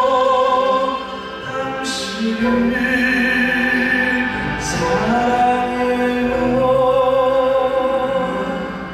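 Male crossover vocal quartet singing in an operatic style, several voices holding long notes with vibrato, accompanied by a Korean traditional orchestra.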